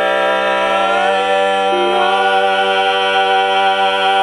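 Men's barbershop quartet singing a capella in four-part harmony, holding one long chord on the drawn-out ending of the song. A couple of the voices slide to new notes about one and two seconds in while the chord is sustained.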